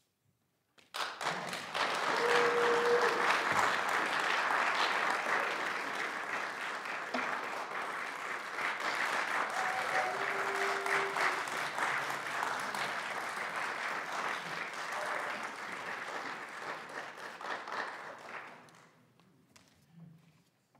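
Audience applauding in a concert hall: the applause breaks out suddenly about a second in, holds steady, and dies away near the end.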